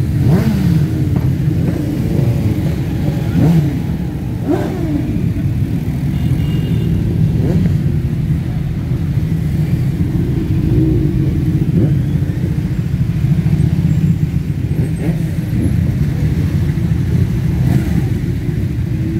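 A dense pack of motorcycles riding slowly past at parade pace, their engines making a continuous rumble. Now and then individual bikes rev, their pitch rising and falling.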